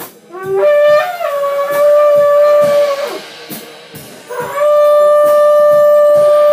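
Two long blasts on a horn, each opening with a short rising glide and then held on one steady pitch; the second starts about four and a half seconds in and is held to the end.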